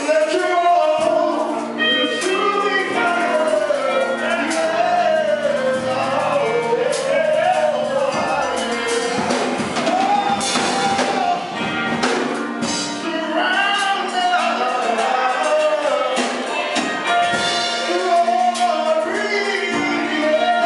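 A man singing a slow gospel song into a microphone, his voice gliding and sustaining notes, over live instrumental backing with held chords and light percussion.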